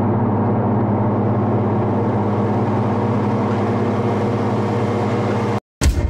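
Engine running at a steady speed, an even low hum that cuts off abruptly shortly before the end, where a different sound begins.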